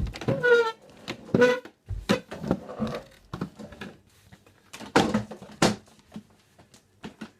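Chair legs scraping across a floor in a quick series of short scrapes and knocks; two of the scrapes in the first second and a half squeal with a clear pitched tone.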